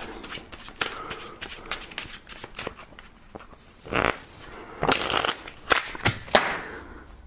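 Playing cards being shuffled and fumbled by hand: a run of quick little card snaps and flicks, with several louder riffling rustles in the second half, the handling of someone who admits he is not good with playing cards.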